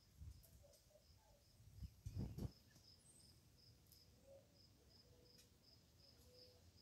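Near silence, with faint, steady insect chirping that repeats about three times a second. A brief low rumble comes about two seconds in.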